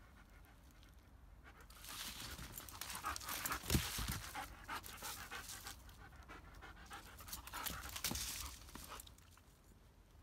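German Shepherd dog panting hard close by, in two spells about two seconds in and again near the end, with a low thump in the middle.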